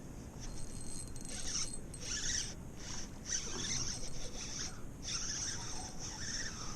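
Fishing reel being cranked in irregular spurts, a scratchy zipper-like whirr.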